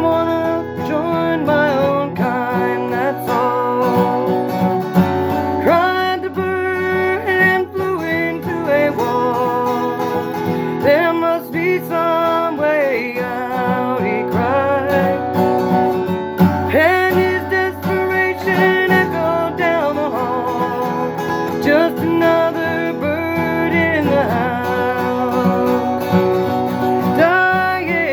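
Acoustic guitar strummed steadily under a wavering melody line, in a cover of a bluegrass-tinged folk-rock song.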